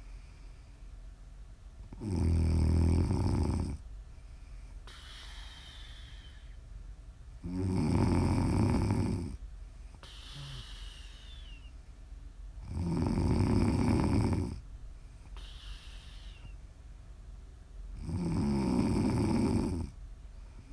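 A woman snoring in her sleep: four loud, rough snores about five seconds apart, each lasting about a second and a half. Between them come quieter breaths with a faint falling whistle.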